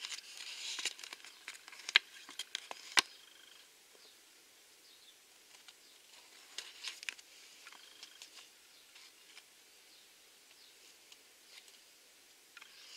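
A folded paper collector's checklist card being handled and leafed through, crinkling and rustling in the first few seconds with two sharp clicks about two and three seconds in. After that come only occasional faint ticks and taps.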